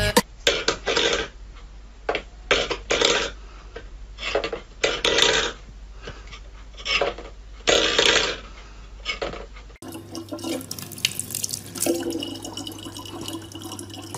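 Stainless-steel pet bowls clattering and scraping on a wooden floor in irregular bursts. After about ten seconds, a thin stream of tap water runs steadily into a plastic bottle, with a low hum under it.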